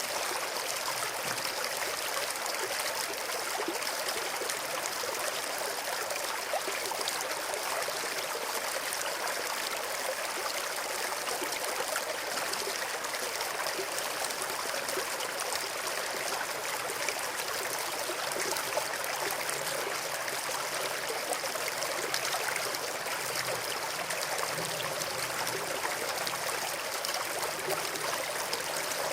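Stream of water flowing steadily, an even rushing babble.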